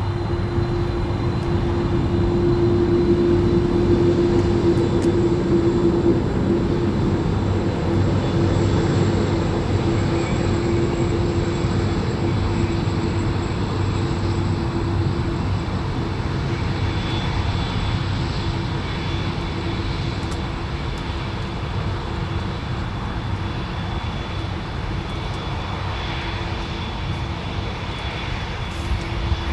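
Boeing 707's four jet engines running at high power: a steady, loud rumble with a constant hum through it, loudest a few seconds in and then easing slightly.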